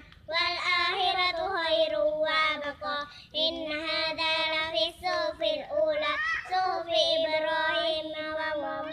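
Two children, a boy and a girl, reciting the Qur'an together in a melodic chant, with long held notes and a short pause for breath about three seconds in.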